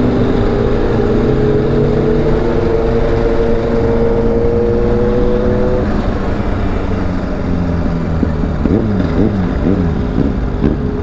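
Motorcycle engines running at a steady cruise, the engine note rising slowly for the first six seconds. From about eight seconds in, quick repeated revs up and down.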